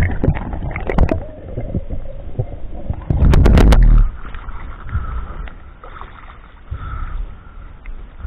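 Water rushing and gurgling around a diver's camera, with scattered clicks early on, then a loud splash lasting under a second about three seconds in as the diver breaks the surface beside a float; after that, quieter water slapping against the camera at the surface.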